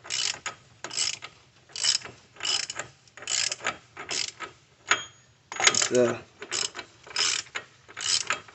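Hand socket ratchet worked back and forth in short strokes, clicking at a bit more than one stroke a second as it snugs down a wheel nut. A brief squeak about six seconds in.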